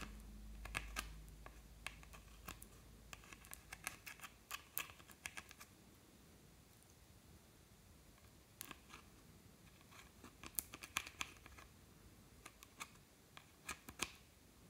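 A thin tool scraping and picking pressed eyeshadow out of a makeup palette's pans, making quick clusters of small clicks and scratches, with a pause of a couple of seconds midway.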